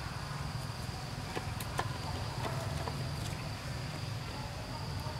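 Forest insects keep up a steady high-pitched drone, one unbroken tone. A few light crackles of dry leaf litter come scattered through the first half.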